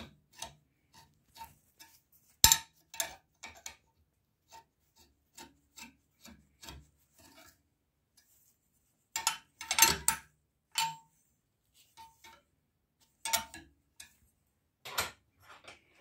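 Twisted square iron bar being bent by hand around the steel pins of a bending jig: irregular metal-on-metal clinks, knocks and rubs as the bar shifts against the pins, with a few louder clanks that ring briefly.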